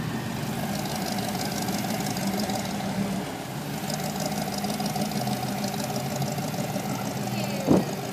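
Yellow Ford roadster hot rod's engine running steadily at low speed as the car rolls slowly past, with a short sharp sound near the end.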